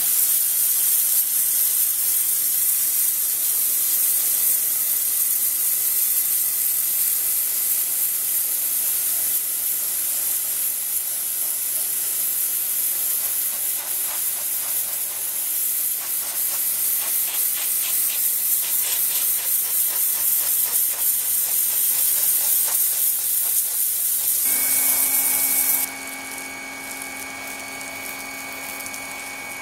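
SunJoe SPX6000C 40-volt cordless pressure washer spraying a jet of water from its wand onto a wooden deck: a loud, steady hiss. Near the end the hiss drops away, leaving the quieter, steady whine of the washer's electric pump.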